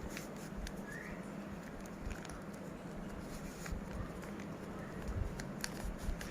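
Plastic Rubik's cube faces being twisted, giving irregular sharp clicks and clacks several times, over a steady low hum.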